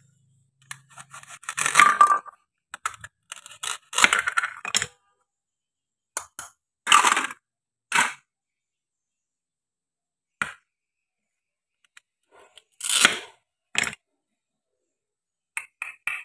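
Plastic toy fruits and vegetables being cut apart with a wooden toy knife. Their hook-and-loop-fastened halves tear open in short crackly bursts, about seven times, with a single sharp tap of the knife on the wooden board about ten seconds in.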